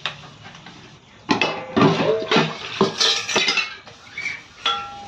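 Metal dishes and utensils clanking and clinking against each other as they are washed by hand: a busy run of knocks with metallic ringing starting about a second in, and a few more clinks near the end.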